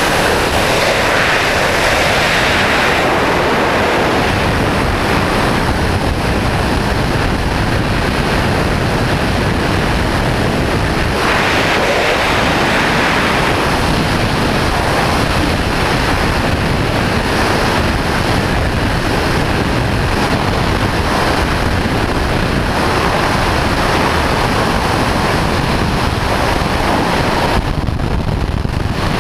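Loud, steady rush of freefall wind across the camera's microphone during a wingsuit flight, swelling a little about a second in and again around eleven seconds.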